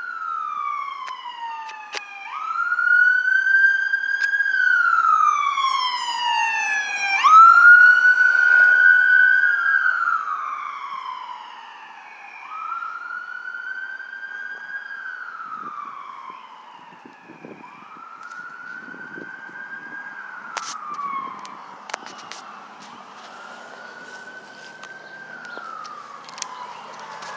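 Emergency vehicle siren in a slow wail, sweeping quickly up, then gliding slowly down, about once every five seconds. It is loud for the first ten seconds or so, then fainter.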